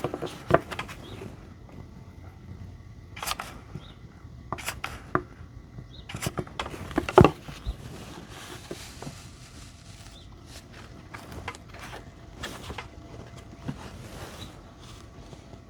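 Scattered light clicks and knocks of cylindrical 18650 lithium-ion cells being handled and pressed together as they are glued into a cell group, the sharpest knock about seven seconds in.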